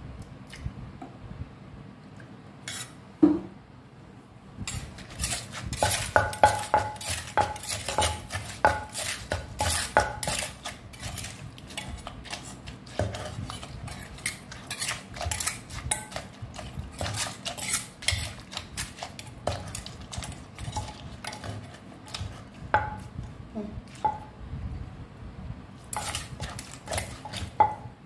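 Wooden pestle pounding in a clay mortar while a metal spoon clinks and scrapes against the bowl, working papaya salad together. The knocks and clinks come quick and dense from about five seconds in, thin out after about twenty-two seconds and return briefly near the end.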